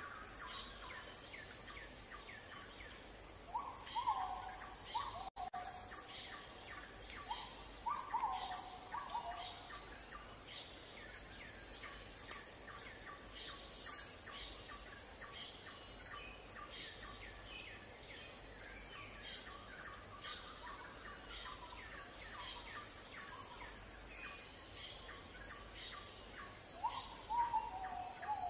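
Tropical outdoor ambience: a steady high insect drone with many short bird chirps. Louder falling whistled bird calls come in bursts about four seconds in, again around eight to nine seconds, and near the end.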